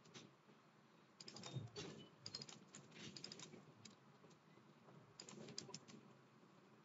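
Faint typing on a computer keyboard, in short bursts of keystrokes with pauses between.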